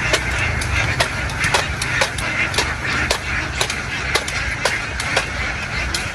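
A large flock of domestic ducks quacking all together in a dense, continuous din, with frequent sharp clicks and knocks scattered through it and a low steady rumble underneath.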